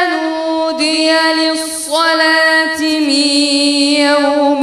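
A boy's voice reciting the Quran in melodic tajweed chanting, drawing each syllable out into long held notes that step up and down in pitch.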